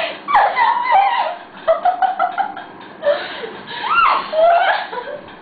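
Children laughing and giggling in high voices, with a squeal that rises and falls about four seconds in.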